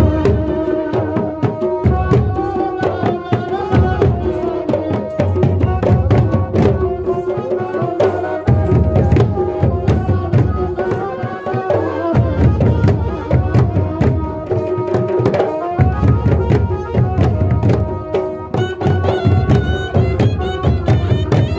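Live jhumar folk music: a hand drum is struck in quick strokes, with deep bass strokes in phrases that drop out briefly now and then, under a sustained melody.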